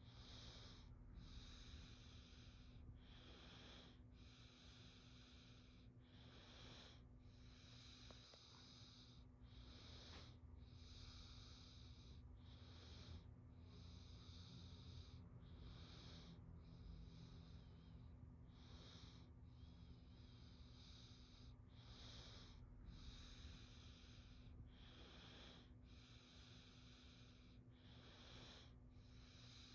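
Quiet, regular breathing: soft hissing breaths about once a second, each in and out heard in turn, over a faint steady hum.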